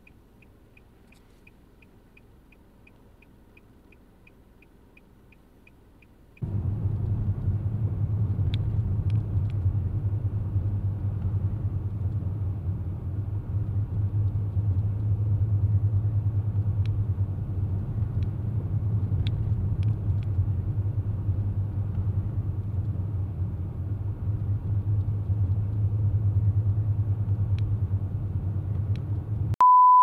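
Faint, quiet background with a quick, even ticking, about three ticks a second. About six seconds in, the low, steady rumble of a vehicle driving a snow-covered highway cuts in, with wind noise, and stays the loudest sound. Right at the end it gives way to a steady high beep tone.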